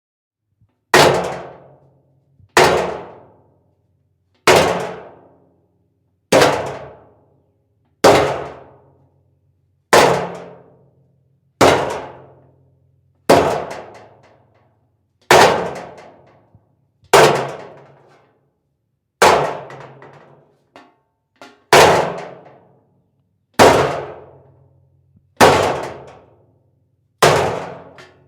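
Two metal objects struck together over and over, one sharp clang about every two seconds, each ringing out and dying away over about a second. A couple of lighter taps come about two-thirds of the way through.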